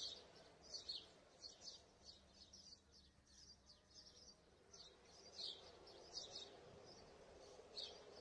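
Faint chirping of small birds: many short, high chirps at uneven intervals, over a faint steady background hum.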